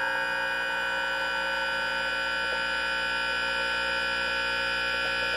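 LG inverter linear compressor running on the bench, driven by its inverter board: a steady buzzing vibration with a high whine over it. It is running as it should, which the technician takes, in theory, to mean it is working correctly.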